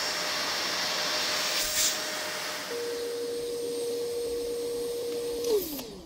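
Small vacuum cleaner running with a steady rushing hiss and a thin whine, its hose pulling air through a solder-stencil box. About halfway a stronger, lower whine joins in. Near the end it is switched off, the whine falling in pitch as the motor winds down.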